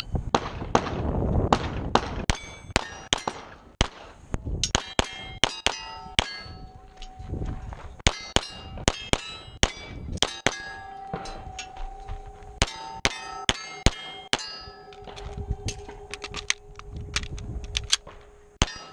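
Pistol shots fired in quick runs at steel plates, each hit answered by the clang and ring of the struck steel. In the second half a struck plate keeps ringing with a steady tone for several seconds between shots.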